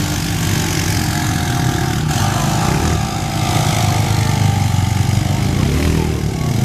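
Honda Pioneer 500 side-by-side's single-cylinder engine running hard under load as it climbs a sand hill, its Sedona Rip Saw tires digging into the loose sand.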